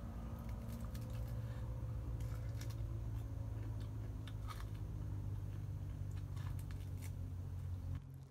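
A person eating fried chicken by hand: scattered crisp clicks and smacks of chewing and of meat being pulled apart, over a steady low hum that drops away near the end.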